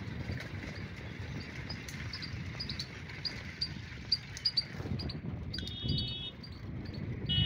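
Steady low rumble of wind and movement on the microphone while riding along a road. Over it come short high chirps, several a second, from about two seconds in, and a brief buzzy tone about six seconds in.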